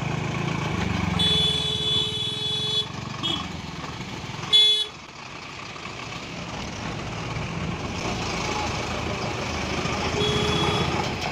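Bus engine running as it drives past close by in slow traffic, with vehicle horns honking: a long blast about a second in, a short toot, a loud sharp blast near the middle, and another blast near the end.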